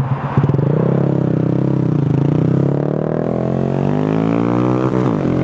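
Honda Grom's 125 cc single-cylinder four-stroke engine pulling away from a stop and accelerating. The pitch climbs, drops briefly about two seconds in and again near the end as the rider shifts up, then climbs again.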